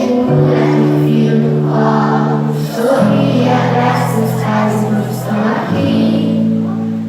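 Music: a group of young children singing a song over held chords that change about every two and a half seconds.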